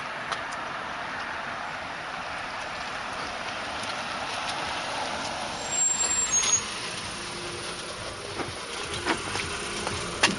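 Steady road-vehicle noise, with a brief louder hiss and a thin high squeal about six seconds in, and a few sharp clicks near the end.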